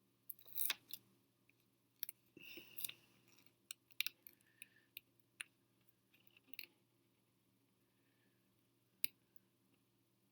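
Faint clicks, taps and short rustles of a fingerboard deck and its grip tape being handled, most of them in the first seven seconds, with one sharp click about nine seconds in.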